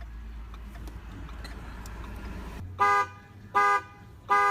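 2015 Ford Fusion's anti-theft alarm going off: the car's horn honks in a regular rhythm, about one honk every three-quarters of a second, starting a little past halfway, three honks in all. Before that there is only a low steady hum.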